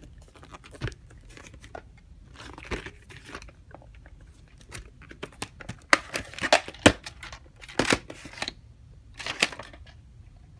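Plastic VHS clamshell case being handled, opened and snapped shut, with scattered clicks and rustling; the sharpest clicks come in the second half.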